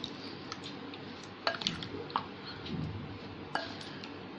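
A spatula stirring paneer cubes through a thick curd marinade in a glass bowl: soft wet squishing, with a few light clicks as the spatula knocks the glass.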